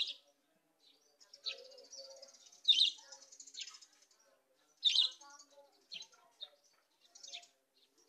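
Caged Barbary dove (burung puter) cooing softly between several short, sharp, high-pitched chirps. The loudest chirps come near the start, about three seconds in and about five seconds in.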